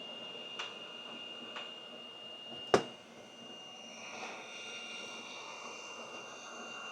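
Steady blower hiss with a thin high whine, broken by two light clicks and one sharp click about three seconds in.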